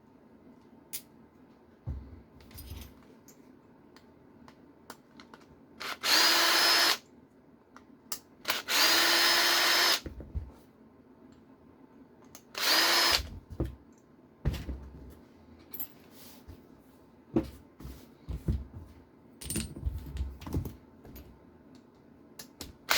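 Small cordless power screwdriver spinning in three short runs of about a second each, backing out screws on an RC car chassis during teardown. Scattered clicks and light knocks of small parts being handled fall between the runs.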